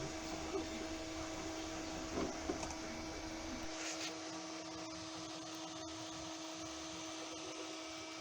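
Elegoo Neptune 2 3D printer running: a steady fan whir with a constant hum. The low rumble beneath it drops away about halfway through.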